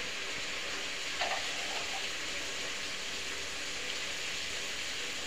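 Steady sizzling of a brinjal and vegetable curry frying in an aluminium pot on a gas stove.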